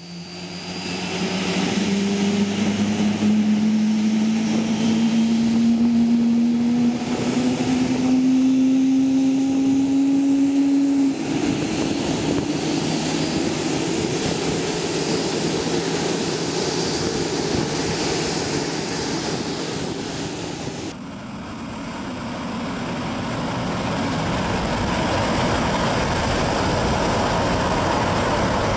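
Boeing 777-300ER jet engines: a whine that rises steadily in pitch for about ten seconds, then a steady rushing jet noise. About twenty seconds in the sound changes abruptly to a duller, lower rumble that grows gradually louder.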